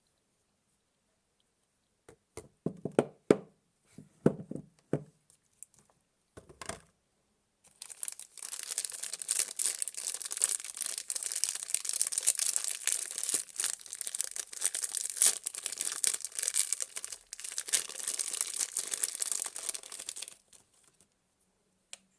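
Soap packaging being unwrapped by hand: a few light taps and knocks of handling, then a long stretch of continuous crinkling and tearing of the wrapping that stops abruptly near the end.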